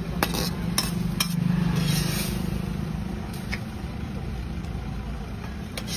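A few sharp metallic clinks of a steel ladle against cookware, over a steady low mechanical hum.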